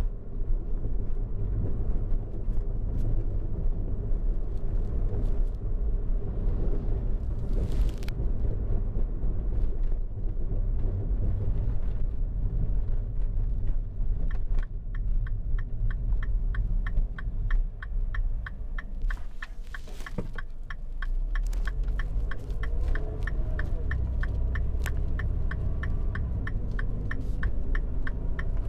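A car driving on a road, with a steady low engine and road rumble. Partway through, an even ticking starts at about three ticks a second and runs for around twelve seconds before stopping near the end.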